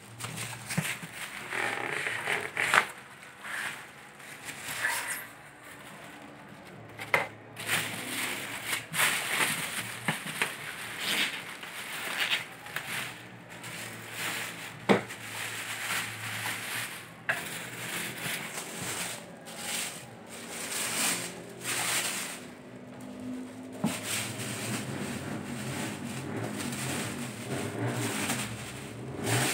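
Clear plastic wrapping sheet rustling and crinkling in irregular bursts as it is handled and pulled back off a treadmill packed in a cardboard box.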